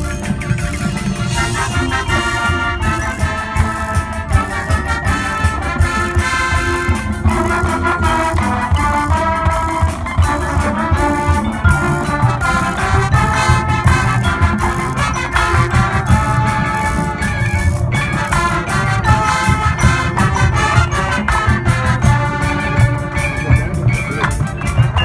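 Marching band playing: brass melody over percussion with a steady beat, mallet keyboards and drums adding bright pitched notes.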